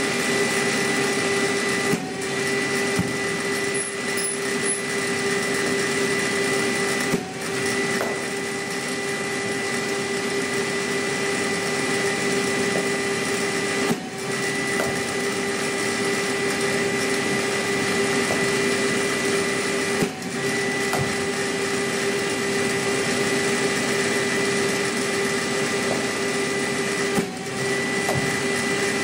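Cricket bowling machine's spinning wheels whirring steadily, with a brief dip in the whir and a knock about every six to seven seconds as a ball is fired through, five times.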